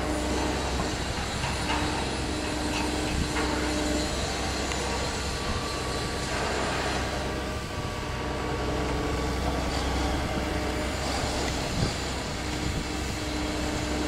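Diesel construction machinery running steadily: a Bomag walk-behind vibratory roller compacting soil, with a wheeled excavator working alongside. A continuous low drone, with a humming tone that comes and goes every few seconds.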